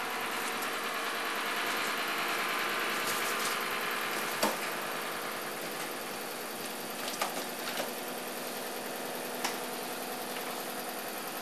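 Homemade pulse motor running at speed, a steady mechanical hum with a few sharp clicks.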